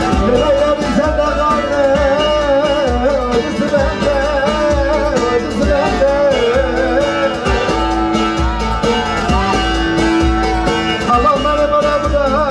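Live Turkish wedding band playing Middle Eastern folk dance music: a wavering, ornamented melody line over a steady low beat.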